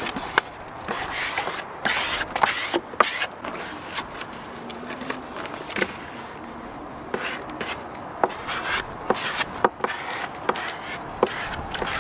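Vinyl decal transfer paper rustling and crackling as it is peeled off a fibreglass hull and the letters are rubbed down, with irregular rubbing and sharp clicks.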